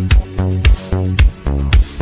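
Background dance music with a steady beat of about two hits a second over a sustained bass line.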